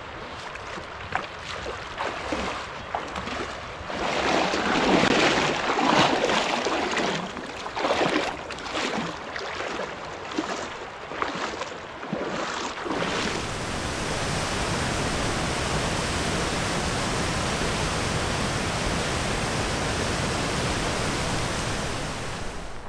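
Irregular splashing and sloshing of water as a person wades barefoot through a shallow mountain river. About halfway through this gives way to the steady, even rush of a waterfall pouring down rock slabs.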